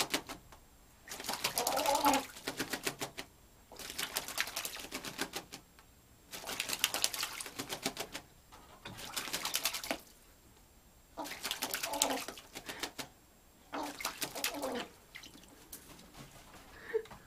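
An American crow bathing in a shallow bowl, splashing and flicking water in about seven bursts of a second or two each with short pauses between. Short, silly calls from the bathing crow come through a few of the bursts.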